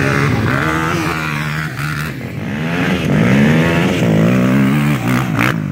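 Several ATV engines idling and revving at once on a race start line, with the pitch rising and falling repeatedly as riders blip their throttles and one quad accelerates away. A brief sharp knock comes near the end.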